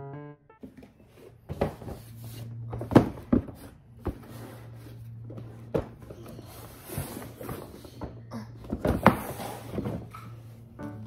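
A large cardboard shipping box being handled and opened: knocks, scrapes and rustling of the cardboard, with sharp knocks about three and nine seconds in, over a steady low hum.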